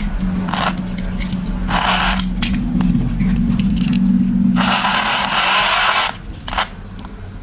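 Small motor of a battery-powered toy train whirring steadily, with several bursts of plastic scraping and rattling. The whirring and scraping drop away suddenly about six seconds in.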